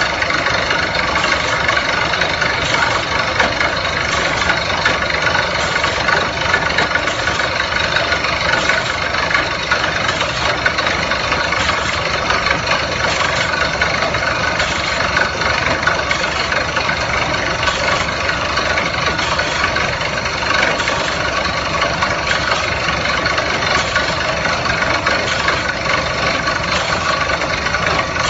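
Tractor-mounted water well drilling rig running: a loud, steady mechanical noise of engine and rig that holds without a break.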